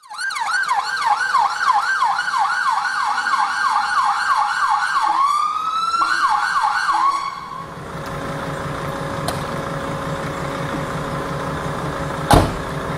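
Ambulance siren on a fast yelp, about three rising-and-falling sweeps a second, switching briefly to a slower rising wail and back before cutting off a little past halfway. A vehicle engine then runs steadily, and a single loud thump comes near the end.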